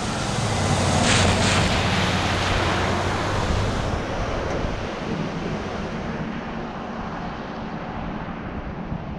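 Chevy Silverado pickup ploughing through a flooded road: a heavy rush of splashing water over a low engine hum, loudest in the first few seconds, then dying away to a weaker wash as the spray settles.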